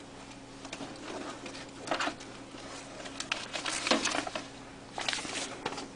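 Paper folders rustling and being flicked through by hand in an open filing-cabinet drawer, in several separate bursts of shuffling.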